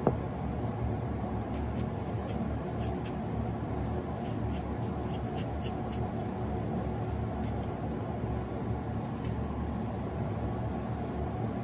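A kitchen knife knocks once on the cutting board as it goes through an apple, then makes faint crisp ticks and scrapes as an apple wedge is peeled by hand, over a steady low hum.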